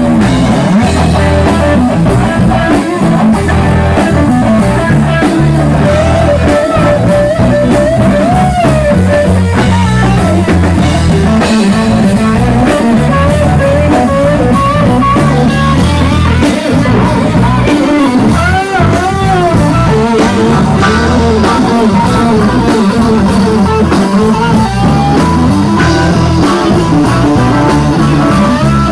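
Live electric guitar, bass and drum kit trio playing an instrumental blues-rock groove. The lead electric guitar plays a solo of bent notes with vibrato over a steady bass and drum pulse.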